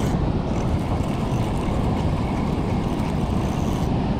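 Steady low rumble of wind on the microphone and surf, while a spinning reel is wound in against a hooked fish.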